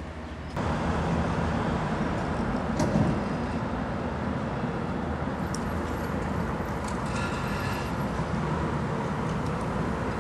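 Steady rumble of a moving vehicle heard from inside, starting suddenly about half a second in. Around seven seconds in there is a brief faint squeal made of several high tones.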